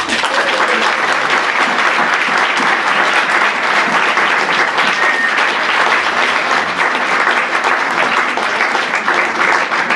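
Audience applause: many people clapping together, breaking out suddenly and holding steady and loud.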